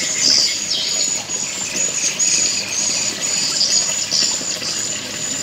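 Small birds chirping continuously at high pitch as background ambience, with a thin steady high tone running underneath.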